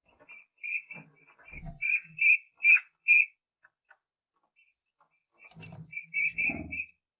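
Eurasian bullfinches giving soft, piping whistled calls: a run of short notes on nearly one pitch, in two bursts. Low rustling knocks come with the notes.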